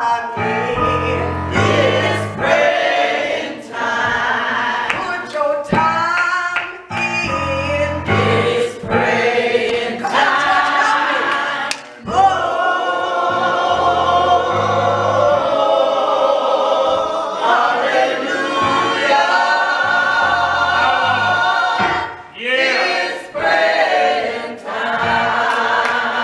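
Gospel choir singing in harmony with keyboard accompaniment, steady low bass notes under the voices.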